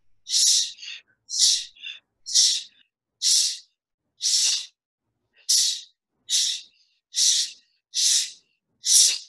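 Ten forceful 'shh' exhales, about one a second, each a short sharp hiss: fire breathing, a fast breathing exercise with the lower belly snapped in on every exhale.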